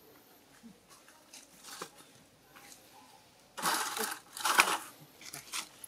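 Two short, loud bursts of rustling, the second about a second after the first, amid faint scattered clicks.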